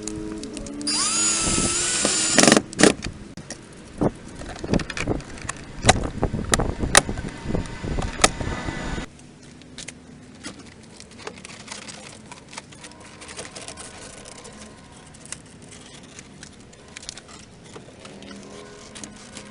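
Power tool spinning up twice with a high whine, then a loud, rough stretch of grinding on a steel door reinforcement plate, with scattered sharp clicks, stopping abruptly about nine seconds in. Faint handling clicks follow.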